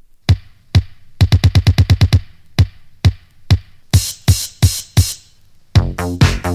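Electronic dance music intro built up from a drum machine. There are separate kick-drum hits, a fast roll of kicks at about eight a second, then kicks joined by bright noisy hits, a brief break, and the full track with bass and synths coming in near the end.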